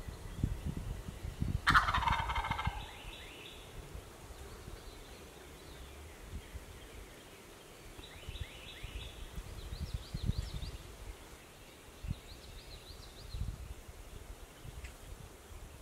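A wild turkey gobbler gobbles once, loud, about two seconds in. A second, fainter gobble follows around eight seconds in.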